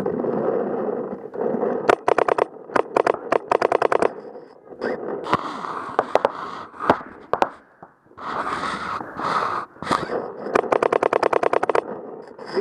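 Paintball markers firing rapid strings of shots, a dozen or so a second, in a few short bursts and one long fast string near the end, with a steady rushing noise between the strings.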